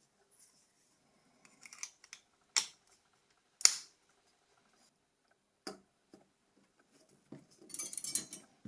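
Sharp clicks and small knocks from small plastic and metal parts of a Nokia 6600i slide phone being handled and fitted together during reassembly. The loudest click is about three and a half seconds in, followed by a brief scratchy rustle near the end.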